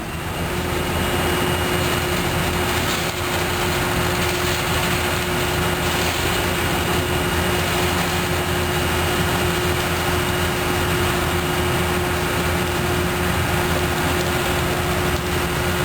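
Hino FM260TI concrete mixer truck's diesel engine running steadily, with a steady whine held over the engine noise throughout.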